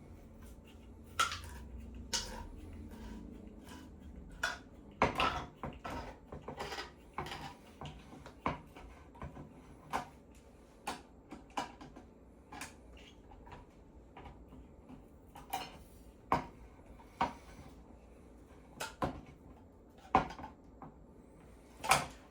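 Scattered clinks and knocks of metal kitchenware as a can of cream-style corn and utensils are handled, irregular and about one a second.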